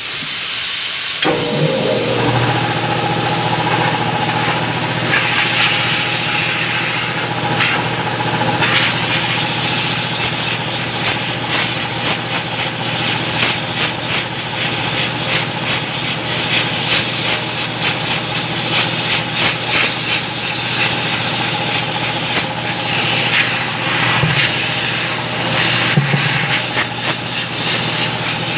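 Compressed air blowing through a truck's air filter to clear out the dust: a steady rushing hiss over a constant motor hum, starting about a second in. The hiss grows sharper in a few stretches.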